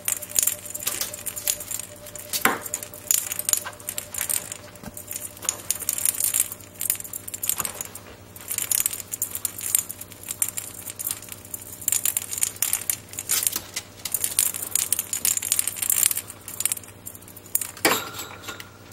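Ferret playing with a small ball in a wire cage: rapid, irregular clicking, clattering and metallic jingling as the ball is rolled and knocked about, in bursts throughout.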